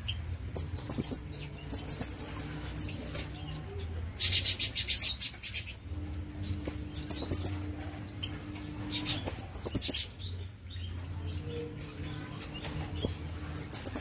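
Pin-tailed parrotfinch calling: thin, very high chirps in small clusters every second or two, with a longer buzzy, rattling call about four seconds in.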